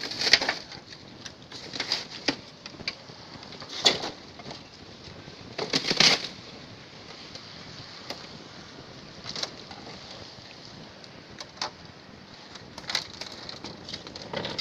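Irregular knocks and clattering impacts, a second or a few seconds apart, the loudest about six seconds in, as a refrigerator is broken apart by hand.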